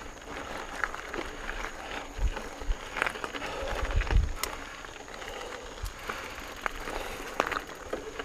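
Mountain bike being ridden over a dirt trail: tyres on dirt with scattered clicks and knocks from the bike, and low rumbles of wind on the microphone a couple of times.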